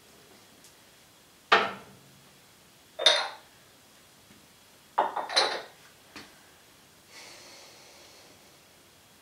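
Metal kitchen utensils clinking: about five sharp, separate clinks with a bright ring, a second or two apart, the last three bunched together, then a brief faint scrape.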